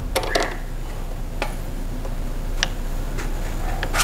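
A few scattered sharp clicks and light metallic taps from hand tools and exhaust hardware being handled while fitting a motorcycle slip-on exhaust, over a low steady hum.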